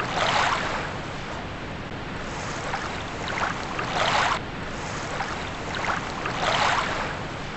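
Small waves washing onto a lakeshore, swelling and falling away every couple of seconds, with wind.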